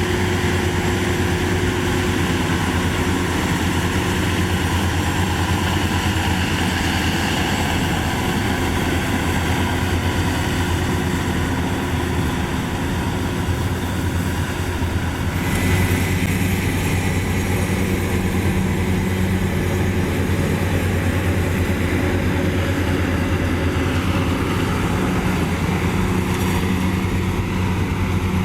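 Rice combine harvester (Maxxi Bimo 102) running steadily at working speed, its engine and threshing machinery making an even drone. About halfway through the sound shifts and a thin high whine comes in.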